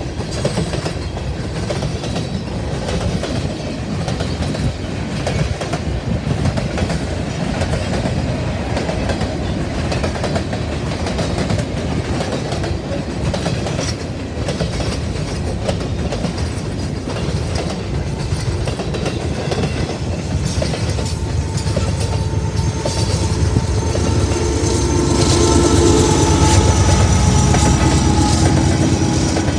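Freight train of grain cars rolling past, wheels clicking over the rail joints under a steady rumble. Over the last several seconds a few steady high tones join in and the sound gets louder.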